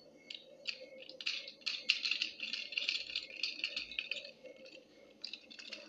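Plastic LEGO bricks of a handheld unicorn model clicking and rattling as it is moved about, a rapid, irregular clatter that is busiest through the middle.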